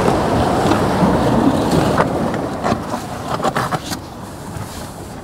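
Steady rushing of wind and surf at a rocky jetty, easing off about four seconds in. Several sharp clicks and knocks come between about two and four seconds in.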